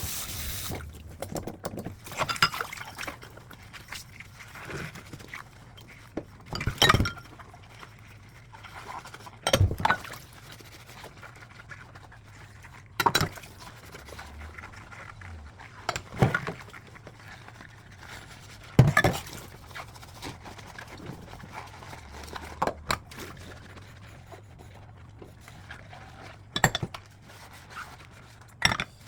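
Dishes being washed by hand in a sink: plates and bowls clink and knock against each other every few seconds, with water splashing between.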